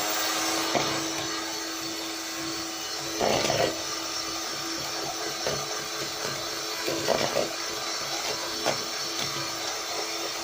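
Electric hand mixer running steadily at speed, beating chantilly cream in a bowl, with a steady whine and a few brief louder rattles of the beaters about a third and two thirds of the way through.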